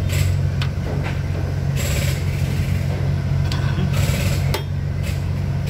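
Metal hand tools working a rocker-arm valve adjuster on a Cummins diesel: a wrench and screwdriver on the adjusting screw and locknut, giving short metallic clicks and brief scrapes, during a valve lash adjustment. A steady low engine hum runs underneath.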